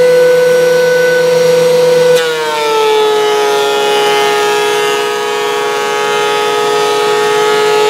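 Delta benchtop thickness planer running with a steady whine. About two seconds in, its pitch drops a little and settles lower with added rushing noise as the board enters and the cutterhead starts planing.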